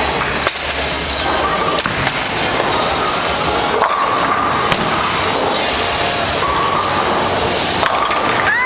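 Bowling alley din: a steady clatter of balls and pins with sharp knocks scattered through it, and background music playing.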